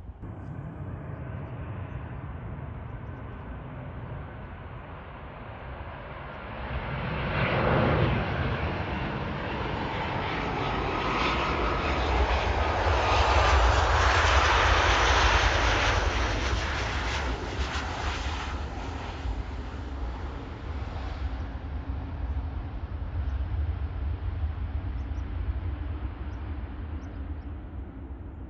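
Jet airliner's engines passing close by: a wide rushing engine noise that builds over several seconds, peaks in the middle and slowly fades away over a steady low rumble.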